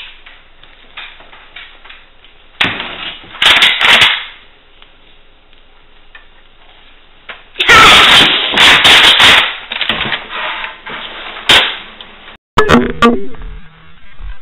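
Rapid gunshot-like pops in volleys: a short cluster about three seconds in, then a longer, louder burst of shots about eight seconds in, with a single shot near eleven and a half seconds.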